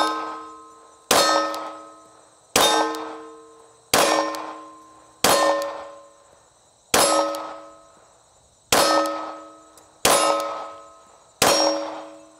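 Glock 43X 9mm pistol fired at a slow, steady pace, about nine shots roughly 1.3 seconds apart. Each shot is followed by the ringing clang of a hit steel target that fades over about a second.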